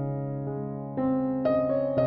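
Background music: a soft piano-like keyboard holding gentle chords, with new notes struck about a second in and again shortly after.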